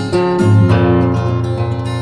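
Background music led by strummed acoustic guitar, with a steady pulsing bass.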